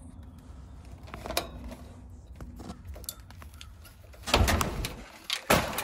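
Hand work on a heat pump condenser's fan motor as it is pulled free: light metallic clicks and knocks, then two loud rough scraping rattles, about four and five and a half seconds in.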